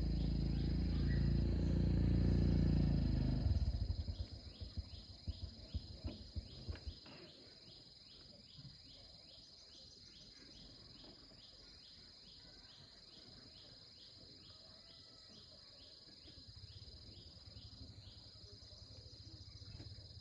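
Insects chirping: a steady high drone with regular pulsed chirps about twice a second, in the manner of crickets. It is preceded by a loud low rumble in the first few seconds, which ends in a series of knocks.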